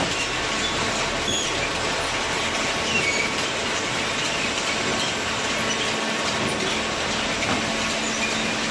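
Hydraulic cardboard baler running: a steady machine noise with a low hum and a few brief, faint high squeaks.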